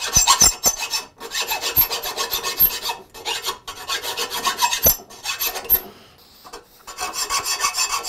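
Metal file rasping in quick back-and-forth strokes on the cast-iron mouth of an old Stanley hand plane, widening the mouth so a thicker iron's bevel can clear it. The strokes come in runs with brief pauses, and a longer lull about six seconds in.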